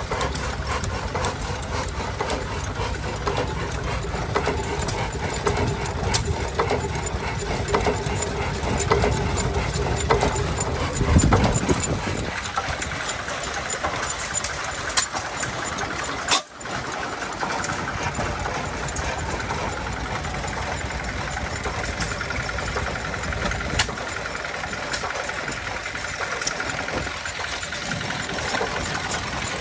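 Large Fairbanks Morse hit-and-miss stationary engine running, with steady mechanical clatter and occasional sharper knocks. The sound drops out briefly about halfway through and then resumes.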